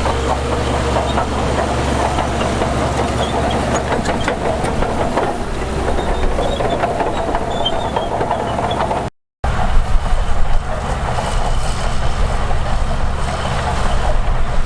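Heavy diesel earthmoving machinery engine running steadily with a deep, even hum. The sound cuts out for a moment about nine seconds in and then resumes.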